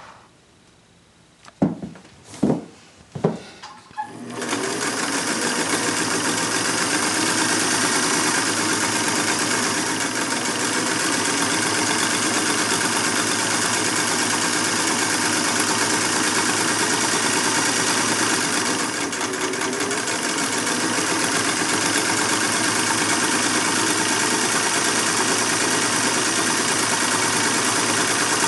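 Three sharp knocks, then a vintage Singer 192K Spartan sewing machine starts about four seconds in and runs steadily at speed, sewing, with a slight easing around twenty seconds in.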